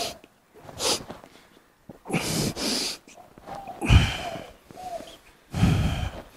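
A person's forceful, breathy exhalations and snorts, about five bursts in a row with short gaps, a couple ending in a brief voiced groan.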